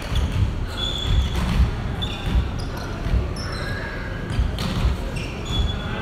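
Sneakers squeaking on a hardwood gym floor, with irregular dull thuds of footfalls and ball bounces and faint voices, all echoing in a large hall.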